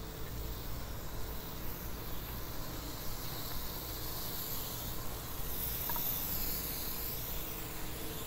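Steady hiss and rumble of road traffic, with a vehicle passing about six seconds in.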